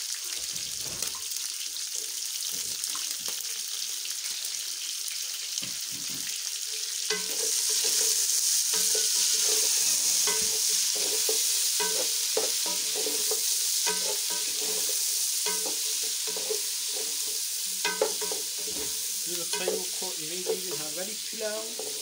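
Beef with sliced onions and green peppers sizzling in an aluminium pot, with a wooden spoon scraping and knocking against the pot as it is stirred. The sizzle grows louder about seven seconds in.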